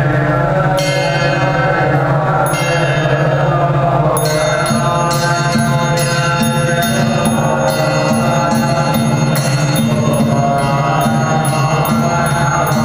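Buddhist ritual chanting over a steady low drone, joined by a struck percussion beat with a ringing metallic tone. The beat comes a couple of times in the first seconds, then settles to about two strikes a second from about four seconds in.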